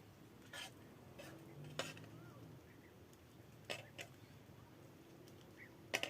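A few light clinks of a metal utensil against a pan, about five separate taps with the sharpest pair near the end, over a quiet outdoor background.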